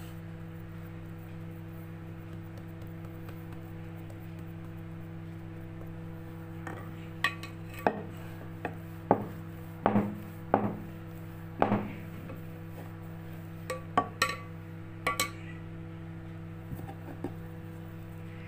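Wooden rolling pin knocking and clicking against a wooden board while naan dough is rolled out and pressed by hand: a dozen or so sharp knocks from about seven seconds in to about fifteen seconds in, over a steady low hum.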